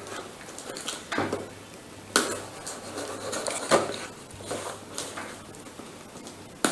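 Cardboard shipping packaging being handled and opened by hand: scattered knocks, taps and rustles, a few of them sharper, about a second apart.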